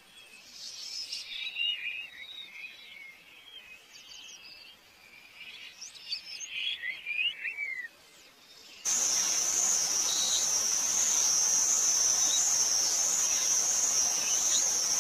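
Rainforest birds calling in short chirps and falling whistles. About nine seconds in the sound switches abruptly to a loud, steady, high-pitched insect drone over a hiss.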